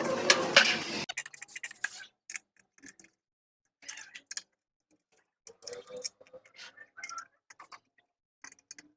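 A louder running sound with a rising tone cuts off about a second in, followed by scattered light clicks and taps.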